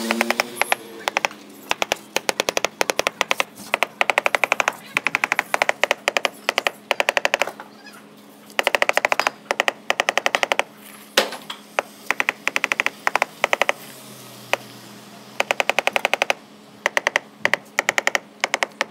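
A hammer tapping rapidly on a black granite slab in runs of quick strikes with short pauses between, knocking the slab down level into its fresh cement-mortar bed.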